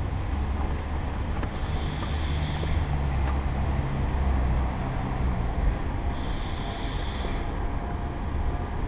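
Steady low rumble of the small vehicle carrying the camera as it rolls along a tarmac path, with two brief high-pitched whines, one about two seconds in and one about six seconds in.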